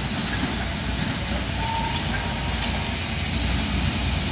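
Heavy demolition machinery running steadily, with its diesel engine working while brick rubble is moved to fill a muddy area.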